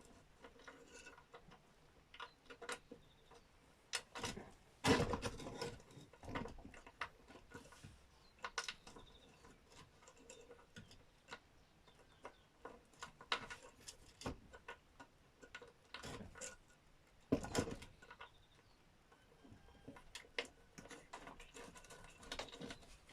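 Scattered light clicks and knocks of metal bolts and parts being handled as the seat bolts of an electric scooter are started by hand, with a few louder knocks about five seconds in and again near seventeen seconds.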